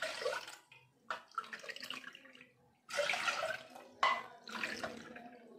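Water poured from a steel jug into a plastic measuring cup and tipped into a steel pot, cupful after cupful, in several splashing pours of about a second each.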